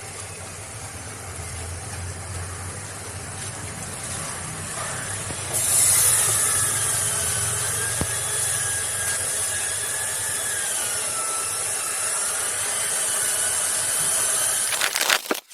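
Refrigerant gas hissing out of a leak in an air conditioner outdoor unit's discharge line: a steady, high-pitched hiss that gets louder about five and a half seconds in, with a faint wavering whistle over it.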